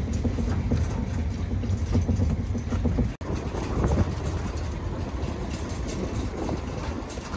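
Wind buffeting the microphone and road rumble from an open galvanised livestock trailer towed behind a car, with the trailer's metal body knocking and rattling over the road. The sound cuts out for an instant about three seconds in.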